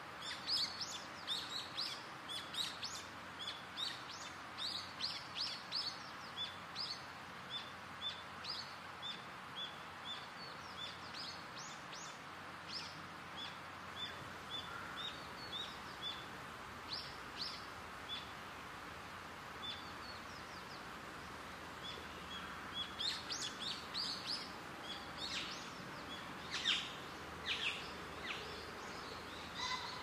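Birds chirping and calling over a steady background hiss of outdoor ambience. The short high chirps come thickly at first, thin to a string of repeated single notes, then grow busy again in the last third.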